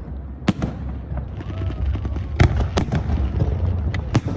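Aerial fireworks bursting: several sharp bangs, the loudest about half a second, two and a half and four seconds in, over a continuous low rumble and crackle from the display.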